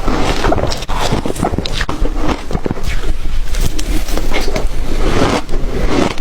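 Crunchy ice being bitten and chewed close to the microphone: a dense, unbroken run of sharp cracks and crunches.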